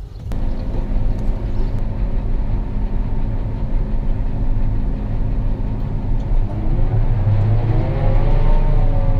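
John Deere 8600i self-propelled forage harvester's V12 engine and driveline running under load, heard inside the cab as a steady drone. A rising whine joins in a little past the middle.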